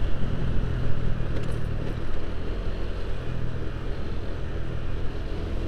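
Motorcycle engine running steadily while riding, over an even haze of road noise.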